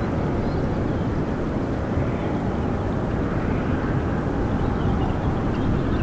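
Steady low rushing noise at the Strokkur geyser, with faint high flickers now and then.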